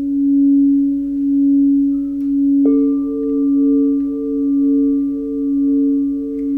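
Singing bowls ringing: a steady low tone that swells and fades about once a second, and about two and a half seconds in a second, higher bowl is struck and joins it with its own pulsing ring.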